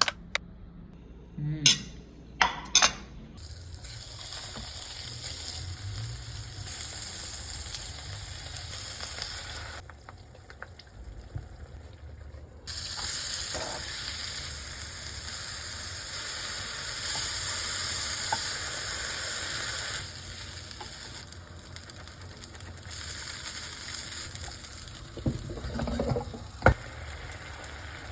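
Food sizzling and frying in a hot pan, a steady hiss that jumps louder and softer between several cuts. A few sharp knocks sound about two to three seconds in and again near the end.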